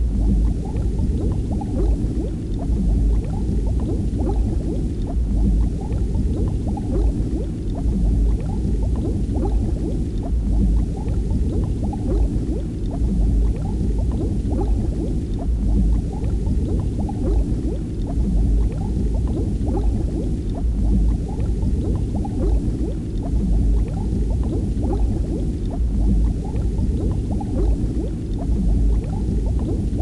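Steady bubbling and gurgling of water, a dense stream of small pops over a deep continuous rumble.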